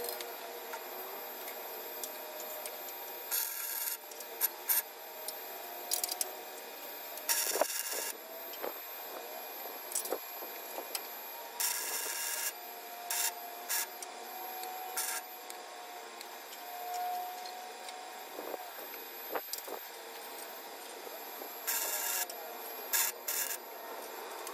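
Short bursts of electric welding on a steel car frame: four crackling tack welds of under a second each, with clicks and knocks of handling between them.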